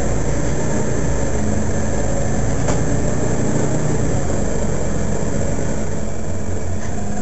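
Mercedes-Benz Citaro Facelift city bus standing with its engine idling: a steady low rumble.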